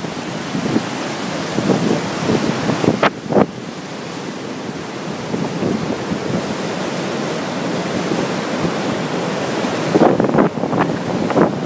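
Rain-swollen river rushing in white water over rocks, a loud steady rush of water. Wind buffets the microphone briefly about three seconds in and again near the end.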